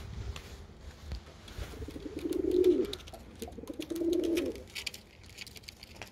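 Domestic pigeon cooing: two low rolling coos, each under a second long, about two and four seconds in, with faint rustling and clicks between them.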